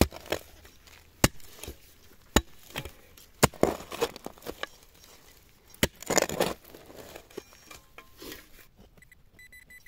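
Hand digging in stony, root-filled soil: a digging tool strikes sharply several times, with scraping and crumbling of earth between the strikes. Near the end a metal detector starts beeping in rapid, even pulses.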